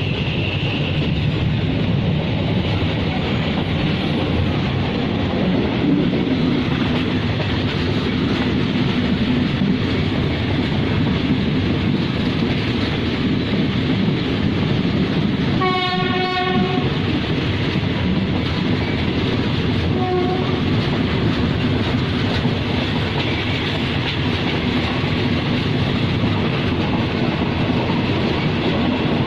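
Passenger train under way: steady rumble of the carriages and wheels on the rails. About halfway through, the diesel locomotive's horn gives one long blast on a single note, then a short blast about four seconds later.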